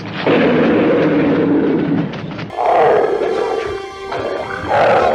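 Movie dinosaur roars, deep and loud, mixed with hissing: three long roars one after another, over background music.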